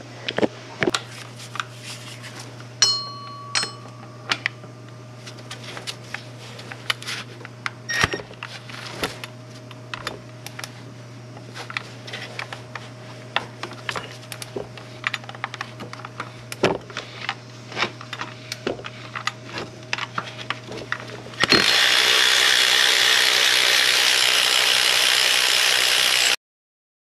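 Scattered clicks, clinks and scrapes of a socket and tools against the engine. Then a cordless ratchet runs steadily for about five seconds, spinning out a 13 mm power steering pump mounting bolt, and cuts off suddenly.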